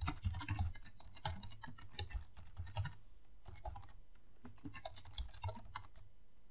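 Typing on a computer keyboard: quick runs of keystrokes, with a short pause about halfway through.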